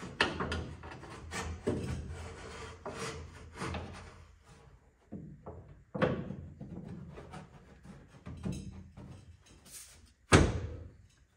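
Irregular knocks, thumps and rubbing as a glue-coated fiberglass body panel on a 1963 Corvette is pushed and tapped into place, with one loud thump about ten seconds in.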